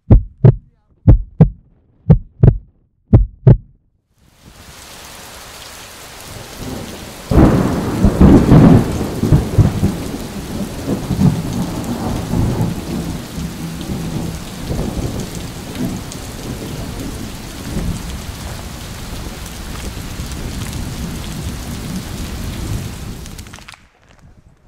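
Pairs of short thumps about once a second for the first four seconds. Then wind buffeting the microphone, a loud rumbling hiss strongest a few seconds in that drops away near the end.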